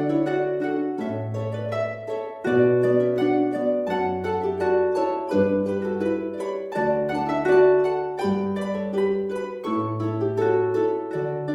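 Background instrumental music of quick plucked-string notes that fade, over a bass line that changes note about every second.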